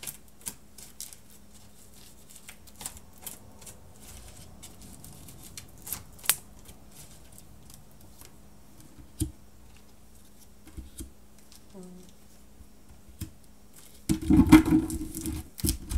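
Oracle cards being handled and shuffled by hand: scattered light flicks and clicks, then a louder burst of card shuffling near the end as new cards are drawn and laid down. A steady low hum runs underneath.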